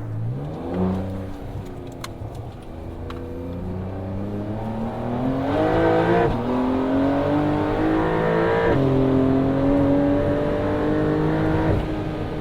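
Porsche 992 Carrera S twin-turbo flat-six with a Capristo valved exhaust accelerating hard, its pitch climbing and then dropping sharply at two upshifts, about six and nine seconds in. Near the end it eases off and the sound drops.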